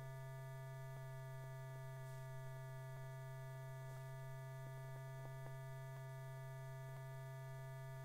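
Steady low electrical hum with a few faint scattered clicks: the background hum and noise of an old film soundtrack, with no other sound.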